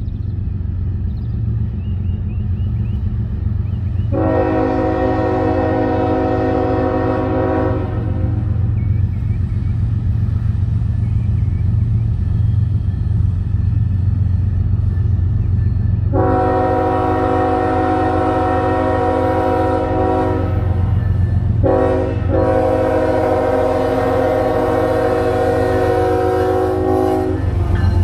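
CSX ES44AH-led all-GE diesel locomotive consist approaching with a steady low engine rumble. Its chime horn sounds three long blasts for the grade crossing: one of about four seconds, then two more close together, the last running about six seconds.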